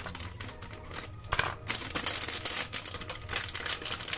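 Shiny plastic blind bag crinkling and tearing as it is handled and pulled open, a dense run of crackles.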